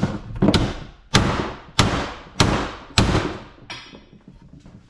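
A hammer striking a metal piece of scrap hard, about six blows roughly two-thirds of a second apart, each ringing off. The blows stop a little past halfway, leaving a brief high metallic ring.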